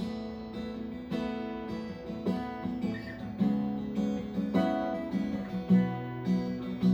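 Acoustic guitar strumming chords, the instrumental opening of a worship song, with strokes about once a second.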